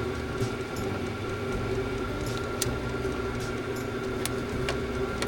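VEVOR 8 kW diesel air heater running: a steady hum from its blower and burner, with a few sharp ticks scattered through it.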